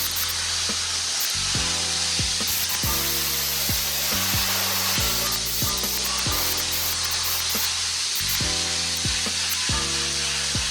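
Steady hiss of a sandblaster blasting abrasive onto a steel motorcycle frame to strip it before powder coating, under background music with a changing bass line.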